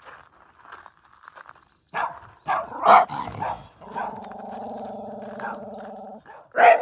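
Male Shiba Inu dogs in a territorial standoff: a few sharp barks two to three seconds in, then a steady growl held for about two seconds, then barking again at the very end.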